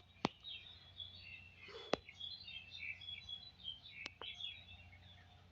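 Small birds chirping in quick, high twittering notes, with a few sharp clicks, the loudest just after the start and about two seconds in.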